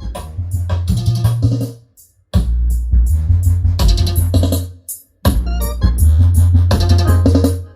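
IMG Stageline PAB-10MK2 loudspeaker playing electronic music for a sound test: heavy, steady bass notes under keyboard or synthesizer chords and a drum-machine beat. The music stops briefly twice, about two seconds in and again about five seconds in.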